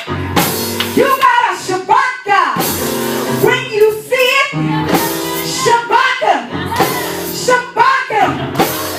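Live gospel praise music: a band with drum kit and guitar playing while voices sing along.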